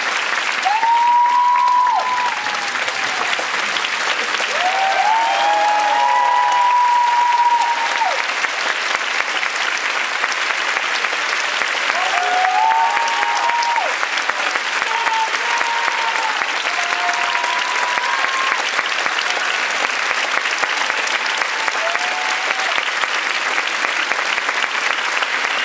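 Large theatre audience applauding steadily at a curtain call, with voices calling out now and then above the clapping.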